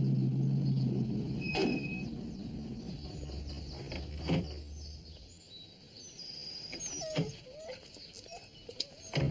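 Outdoor ambience with birds chirping and four sharp thumps spaced a few seconds apart; a low steady hum dies away about a second in.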